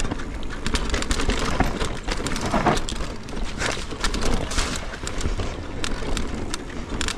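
Mountain bike ridden fast down a dirt forest trail: tyres rumbling over the ground, with the bike rattling and knocking sharply over bumps and wind buffeting the microphone.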